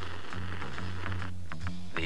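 Background music: low sustained bass notes, changing about every half second.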